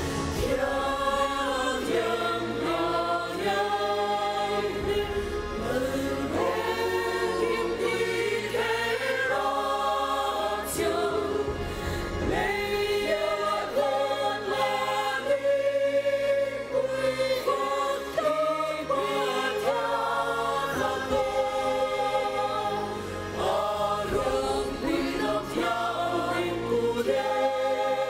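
Mixed-voice church choir of women and men singing a hymn together, the sound continuous throughout.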